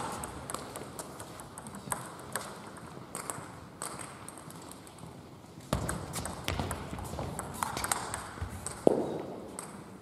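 Table tennis rally: a celluloid/plastic ping-pong ball clicking off the rubbers of the bats and bouncing on the table at an irregular, fast rate, with a heavier knock about halfway and the loudest hit near the end.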